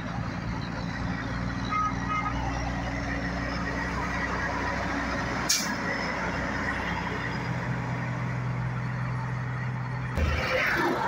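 Diesel engine of a semi truck running steadily as the tractor-trailer passes close by and pulls away, with a brief click about halfway. About a second before the end the sound changes abruptly to louder traffic noise.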